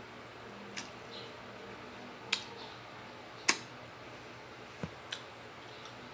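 Metal fork clinking against a ceramic plate while twirling noodles: five sharp clinks, the loudest about three and a half seconds in.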